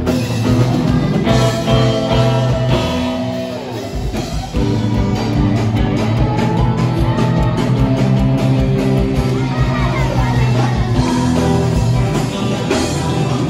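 Live band playing amplified pop-rock: a woman singing over electric guitar and drums. The music thins for a moment about four seconds in, then carries on.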